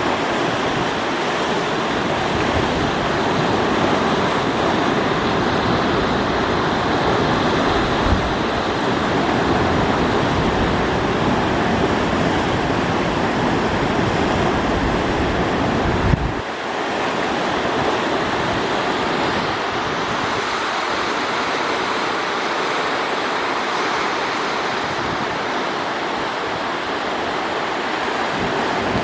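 Steady rush of moving water with wind rumbling on the microphone. The wind rumble drops away suddenly a little over halfway through, leaving the water's even hiss.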